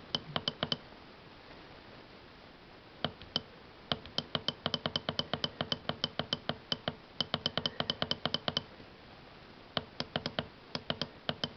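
Rapid short clicks of the keypad buttons on a ZW-BT1 variable-frequency drive, pressed over and over to step the frequency setpoint toward 70 Hz. There are a few clicks at first, then a long run of about five a second, and another run near the end.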